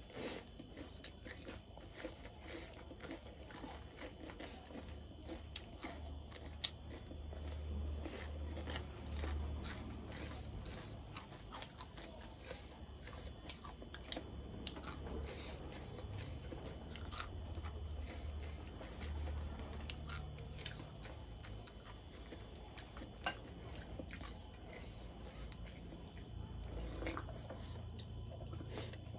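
A person chewing and crunching food close to the microphone, with many small wet mouth clicks and crunches throughout.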